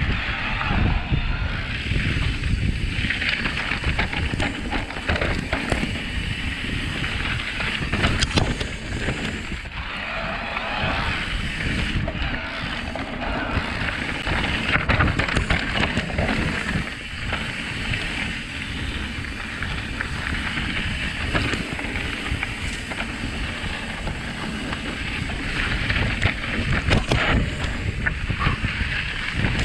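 Wind buffeting the microphone over the rumble of mountain-bike tyres on a dirt trail, with many short knocks and rattles as the electric mountain bike runs over bumps on a fast descent.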